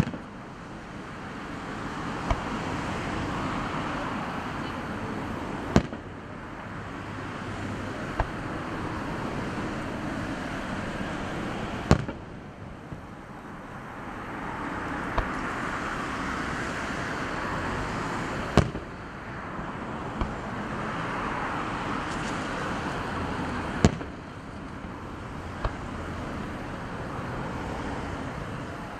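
Fireworks shells bursting in the sky: sharp bangs every two to four seconds, the loudest about every six seconds, over a rushing noise that swells and fades between them.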